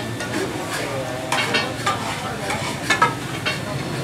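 Boneless chicken sizzling in hot oil on a large flat tawa griddle. A metal spatula stirs it and clanks against the pan several times.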